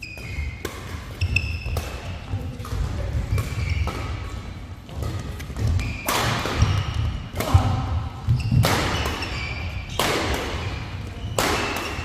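Badminton doubles rally: sharp racket strikes on the shuttlecock, heavy footfalls and short shoe squeaks on the court floor, with a hard jump smash about six seconds in.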